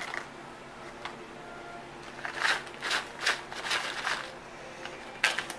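Loose-leaf tea being scooped and shaken into a mesh tea infuser ball: a run of five or six short, dry rustles in the middle, after a quiet start.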